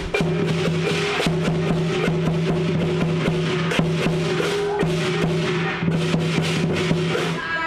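Lion dance percussion ensemble playing a fast, dense rhythm: drum strokes and cymbal clashes over a sustained low ringing tone.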